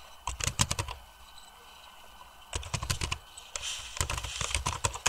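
Computer keyboard being typed on: three quick runs of keystrokes with short pauses between them.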